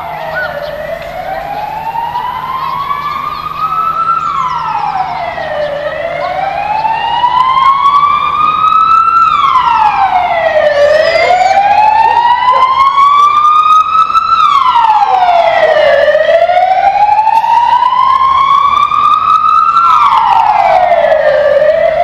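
A siren wailing: each cycle climbs slowly in pitch for about four seconds, then drops back quickly, repeating roughly every five seconds. It grows louder over the first several seconds, then holds steady.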